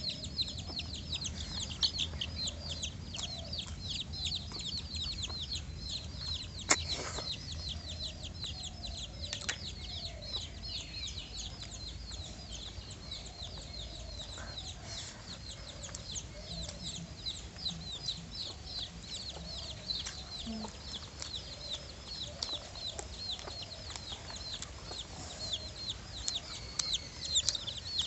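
Chickens clucking over a constant fast, high-pitched chirping, with one sharp click about a quarter of the way in.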